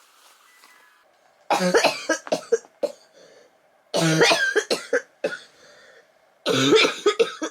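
A person coughing hard in three fits about two and a half seconds apart, each a quick run of several harsh coughs. It is a chesty COVID-19 cough from a breakthrough infection.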